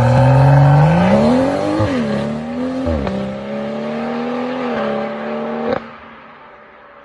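BMW M140i F20's turbocharged 3.0-litre inline-six exhaust accelerating hard away, its note climbing and dropping back at two upshifts, then holding steady as the car recedes. Near the end there is a single sharp crack, and the sound falls away suddenly.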